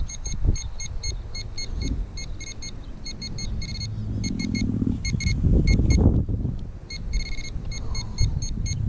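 Handheld metal-detecting pinpointer beeping in short high bursts, in irregular clusters that quicken in places as the probe is pushed through the soil plug, signalling metal in the dirt. Wind rumbles on the microphone underneath.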